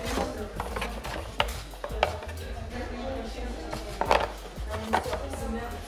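Handling noise from a coiled headphone cable being lifted and moved in a foam-lined cardboard box: a string of irregular knocks and taps, with rustling between them.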